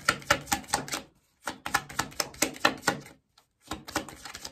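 A tarot deck being shuffled by hand: a quick run of card clicks and flicks, several a second, that pauses briefly twice.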